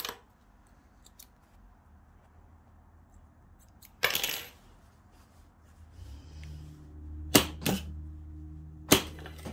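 Sewing machine starting about six seconds in and running with a steady low hum while fabric is fed under the needle, with a few loud sharp clicks near the end. Before that, faint room tone and a short burst of handling noise about four seconds in.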